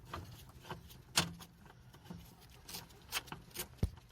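Irregular metallic clicks and clinks of a hand wrench working a bolt loose, with a dull thump near the end.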